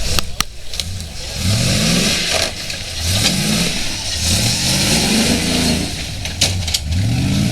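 Competition car engine accelerating hard, its note climbing and dropping back several times as it shifts up through the gears.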